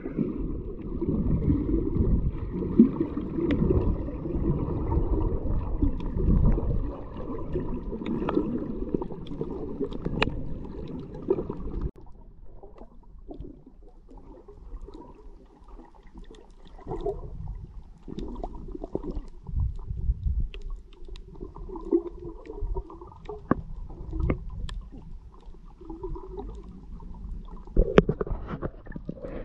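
Muffled underwater sound picked up by a submerged action camera: a low rumbling, gurgling water noise, louder for the first twelve seconds or so, then quieter with scattered small clicks and knocks.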